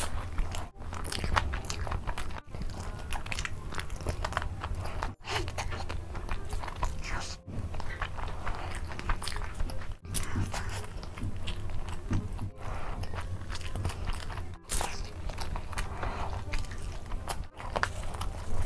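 Close-miked biting, crunching and chewing of spicy fried chicken lollipops, with crackly mouth sounds and a low steady hum underneath. The sound drops out briefly every two to three seconds.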